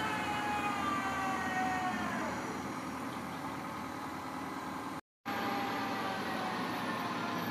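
Mobile crane truck's engine running steadily as it hoists a wall panel, a whine of several tones that drops in pitch about two seconds in. It cuts out briefly about five seconds in, then carries on steady.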